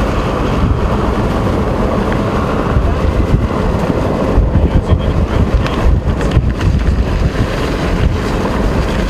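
Wind buffeting the microphone and road rumble from a vehicle driving at speed, a loud, unsteady rush heaviest in the low end.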